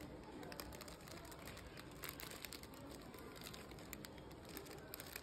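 Soft crinkling of tissue paper and a cellophane bag as a bag of foil-wrapped chocolate truffles is lifted out of a paper gift bag, a run of small irregular crackles.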